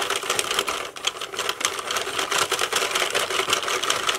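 Singer hand-crank circular knitting machine being cranked: its plastic needles and carriage rattle in a rapid, loud clatter of clicks, stopping abruptly at the end.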